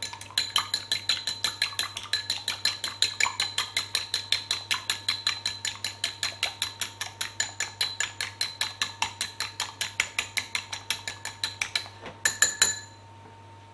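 A utensil beating egg white in a ceramic bowl: a fast, even clinking against the bowl, about five to six strikes a second, each with a short ring. Near the end it stops and there are a few louder knocks.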